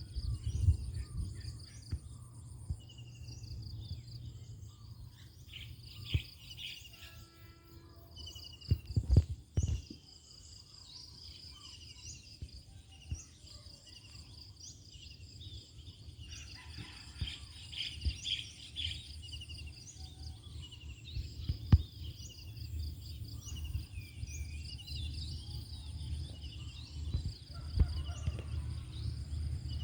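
Outdoor ambience of small birds chirping over a steady high insect drone, with a low rumble underneath and a few sharp knocks about nine and twenty-two seconds in.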